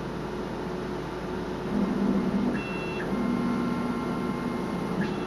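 Stratasys Dimension BST768 3D printer running with a steady hum. From about two seconds in, its motors whine with steady pitched tones in a few separate moves as the printhead travels over the build platform.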